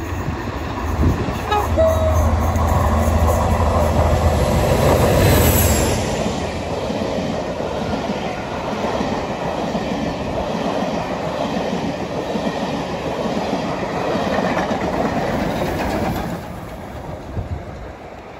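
Class 47 diesel locomotive with its Sulzer twelve-cylinder engine passing at speed with a steady low hum, followed by a rake of coaches rumbling and clattering over the rail joints. The sound falls away about two seconds before the end.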